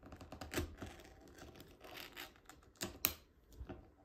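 Full-aperture ring-pull lid of a canned strawberry shortcake being pulled and torn off: a run of sharp metallic clicks and scraping as the lid gives way, the loudest click about three seconds in.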